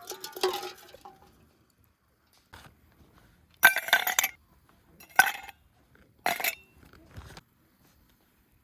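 Metal camp cookware and utensils clinking and clattering: a short clatter at the start, then three separate sharp clinks, the last one ringing briefly.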